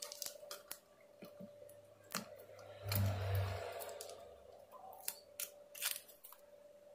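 Scattered light clicks and ticks of small parts being handled at a workbench, with a short low buzz about three seconds in that is the loudest thing heard.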